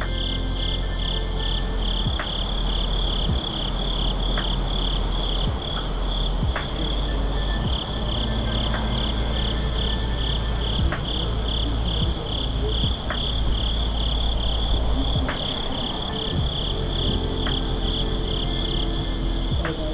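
Crickets chirping in a steady, even pulse, a couple of chirps a second, over a low steady rumble.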